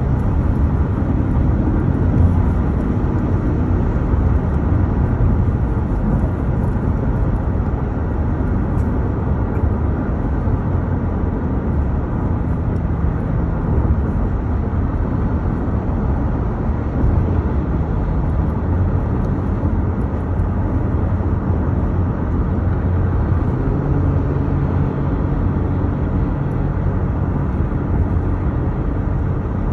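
Steady road noise inside a car cruising at freeway speed: a low, even rumble of tyres and engine.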